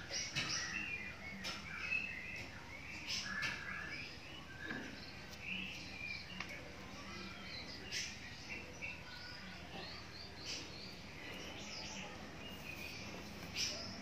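Small birds chirping and twittering in many short, irregular calls.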